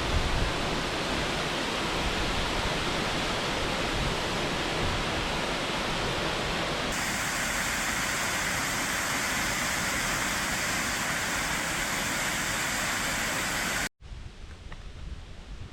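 Miners Falls waterfall rushing in a steady roar of water noise. Its tone shifts about halfway through, and near the end it cuts off abruptly to a much quieter outdoor sound.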